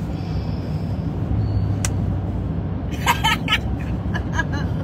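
Steady low road and engine rumble inside the cabin of a moving truck, with a single sharp click about two seconds in and a short burst of voice about three seconds in.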